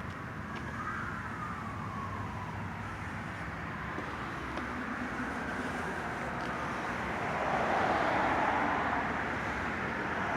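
Road traffic noise, with a passing car swelling and then fading about eight seconds in.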